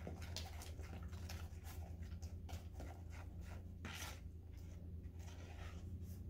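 A spoon stirring thick, half-formed glue-and-cornstarch slime in a plastic bowl: faint irregular scrapes and soft sticky clicks, the slime not yet set after the liquid starch is added.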